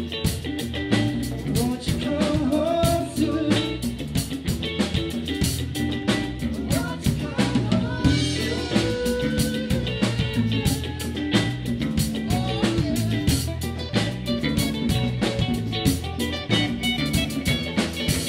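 Live band playing at full volume: a drum kit beating steadily under electric guitars, with a man singing lead into a microphone partway through.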